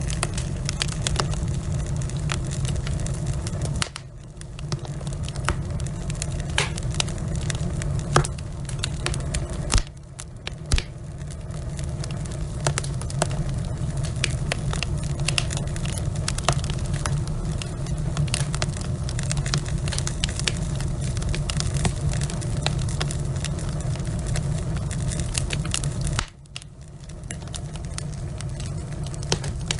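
Log fire in a fireplace crackling, with many sharp pops over a steady low rumble of flames. The sound drops off suddenly about four seconds in, about ten seconds in and again near the end, each time building back up within a second or two.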